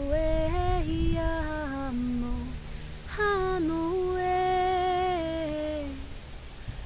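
A woman's voice humming wordlessly in long held notes that glide slowly between pitches, in two phrases; the second starts about three seconds in after a short breath. A steady low rumble runs underneath.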